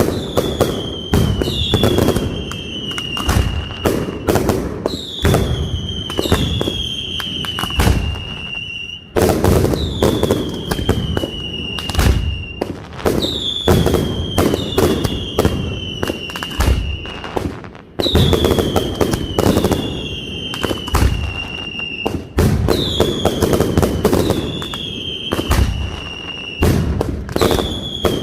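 Castillo fireworks display by Pirotecnia Nadal-Martí: a dense run of bangs and crackling shells, with repeated whistles that glide down in pitch. The barrage comes in waves, easing off briefly twice.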